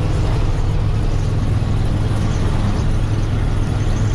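Ford F800 grain truck driving on the road with its empty box, heard from inside the cab. The engine runs steadily under the constant hiss of road noise.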